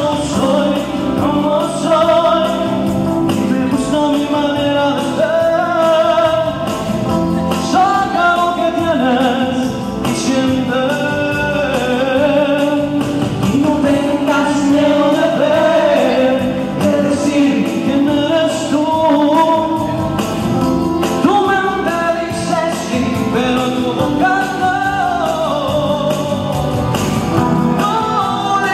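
A male lead singer sings a song over musical accompaniment, with backing vocalists joining in.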